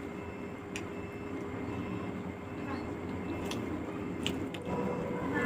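Steady background rumble with a faint hum throughout, with a few short, soft clicks of eating: fingers mixing curry into rice and mouth sounds of chewing.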